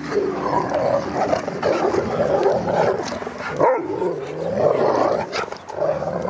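Husky-type dogs vocalizing at each other: long, almost unbroken howl-like grumbling that wavers up and down in pitch.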